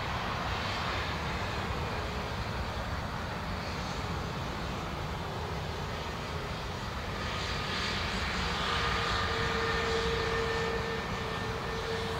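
Airbus A380's four jet engines running at low taxi power: a steady rumble, with a high whine that comes in about eight seconds in and holds.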